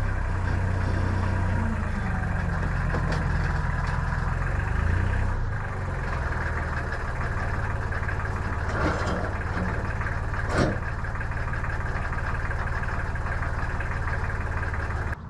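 An engine idling steadily, with two sharp knocks partway through; the engine sound cuts off abruptly near the end.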